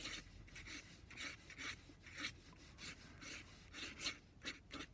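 Flexible nib of a Waterman 52 fountain pen scratching faintly across paper in quick, short strokes, about three a second.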